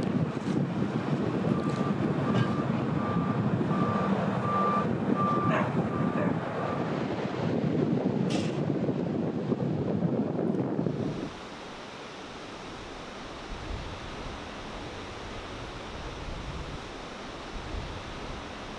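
Steady rumble of breaking surf and wind, with a vehicle's reversing alarm beeping about twice a second for several seconds. About eleven seconds in the sound drops abruptly to a quieter, even hiss.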